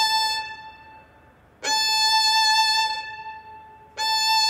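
Violin bowed in separate long strokes on the same high note. One stroke fades out about a second in, the next sounds from about a second and a half to three seconds, and a third begins near the end. Each bow change has a brief stop with the note dying away before the bow reverses.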